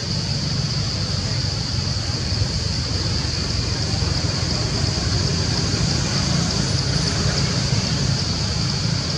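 Steady forest ambience: a constant high-pitched insect drone over a low rumble, with no distinct events.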